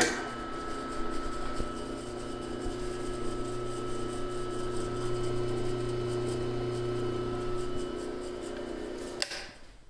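An old Canadian-made bench drill press switched on with a click at its paddle switch, its motor and spindle running with a steady hum and whine. Near the end the sound winds down, and there is another click.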